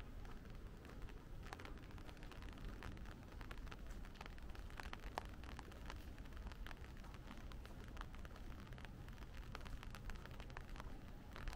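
Steady light rain, with many single drops tapping close by over an even hiss and a low background rumble.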